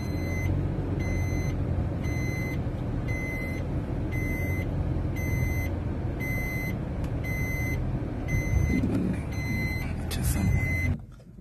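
Swift Dzire's in-cabin reverse-gear warning beeps, a high beep repeating about every two-thirds of a second over the low hum of the running car: reverse is engaged. The beeps stop near the end.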